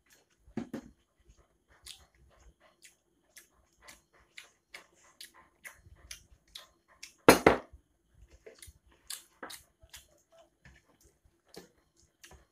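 Close mouth sounds of a person eating rice and curry by hand: wet chewing and lip-smacking clicks, scattered irregularly. One loud thump about seven seconds in.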